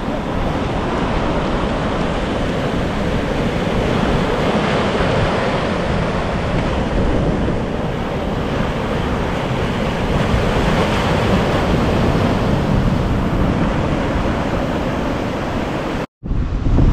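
Steady wash of ocean surf mixed with wind buffeting the microphone, cutting out for a moment near the end.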